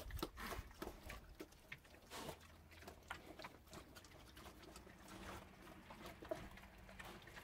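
American Guinea Hog cross pigs eating wet grain mash from a feeding tub: faint, irregular chewing and mouthing clicks.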